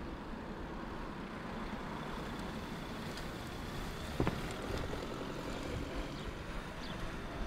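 Camouflaged Hyundai i40 wagon prototype driving slowly past, its engine and tyres a low, steady sound, with a single sharp click about four seconds in.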